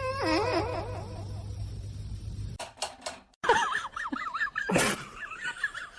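A pet animal crying: a wavering, pitched cry lasting about a second at the start. After a sudden cut, a run of high, quickly wavering cries follows, with a few sharp clicks in between.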